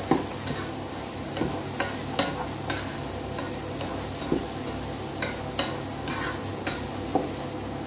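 Fried tofu and tomato sizzling in a nonstick pot while a wooden spoon stirs them, with irregular knocks and scrapes of the spoon against the pot.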